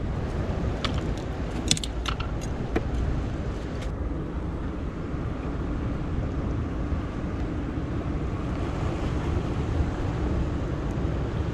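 Steady wind rumble on the microphone over the wash of surf against the jetty rocks, with a few sharp clicks and taps in the first few seconds.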